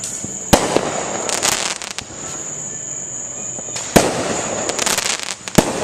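Fireworks going off: three sharp bangs, about half a second in, near four seconds (the loudest) and near the end, with crackling bursts in between.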